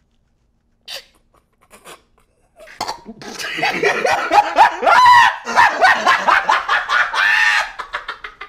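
A man's loud, high-pitched shrieking and wailing outburst that starts about three seconds in, its pitch sliding up and down in repeated arcs, then tapers off near the end.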